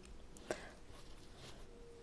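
Quiet handling of a cameo choker, with a faint click about half a second in. Near the end a faint steady ringing tone starts, from a steel hex key about to be tapped against the cameo to test its material.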